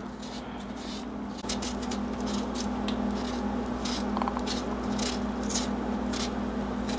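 Knife blade scraping and cutting the skin off a raw potato by hand: a run of short, irregular scratchy strokes over a steady low hum.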